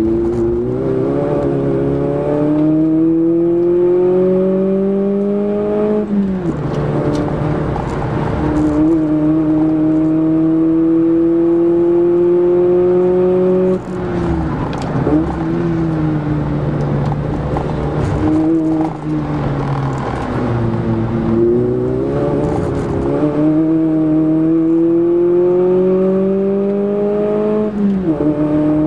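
Toyota Echo's 1.5-litre four-cylinder engine heard from inside the cabin, pulling hard on track. The revs climb, fall sharply about six seconds in as it shifts up, climb slowly again, drop away around the middle as the driver lifts off, then rise again until another upshift near the end.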